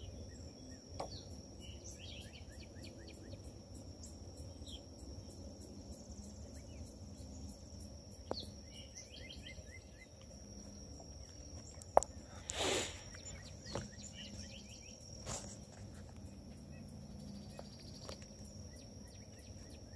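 Faint outdoor ambience: a steady high insect drone over a low rumble, with a few short runs of quick bird-like notes. A sharp click comes about halfway through, followed by a brief noisy burst.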